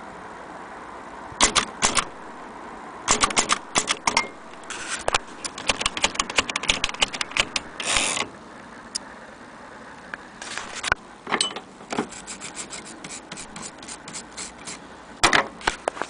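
Vintage Bar-Let portable typewriter being typed on: sharp clacks of keys and typebars striking, in irregular runs, with a brief rasp about eight seconds in and a quicker, even run of lighter ticks in the second half.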